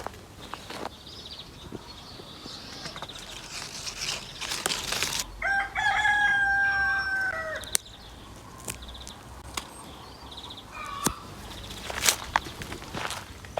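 A rooster crows once, a long call of about two seconds starting a little over five seconds in. Around it come scattered short crackles and snaps, fitting fruit being crushed by hand.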